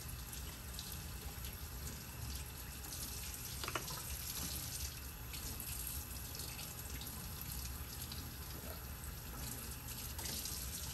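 Tap water running steadily into a sink as plastic dental impression trays are rinsed under it, with a few light knocks as they are handled.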